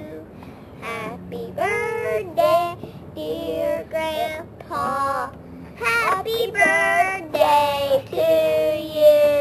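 Young children singing a song together in phrases, ending on a long held note.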